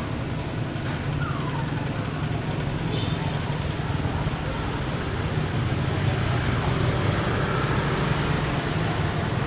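Steady low rumble of outdoor background noise, like road traffic, with one short high call falling in pitch about a second in.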